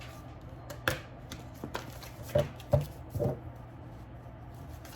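A deck of tarot cards being handled and shuffled by hand: a scatter of short taps and flicks, irregular, over a low steady room hum.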